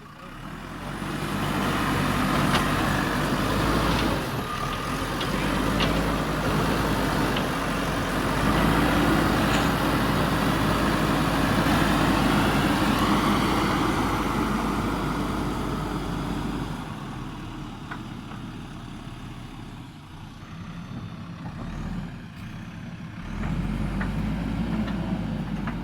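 JCB backhoe loader's diesel engine running under load. It climbs to a steady working pitch about a second in, eases off for several seconds past the middle, and climbs again near the end.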